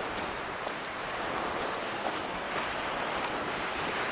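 North Sea waves breaking on the beach, a steady wash of surf, with wind on the microphone.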